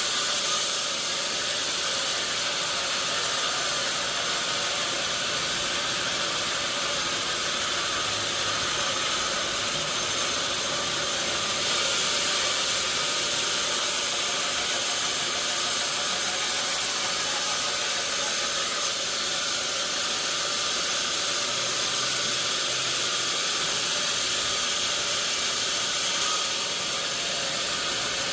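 Sawmill machinery running: a steady, even hiss with no distinct strokes or pauses.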